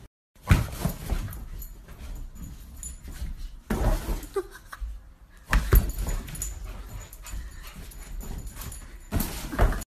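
A dog doing the zoomies over leather furniture: a series of heavy thumps and scrabbling as it leaps on and off a leather couch and armchair, with brief dog whimpering.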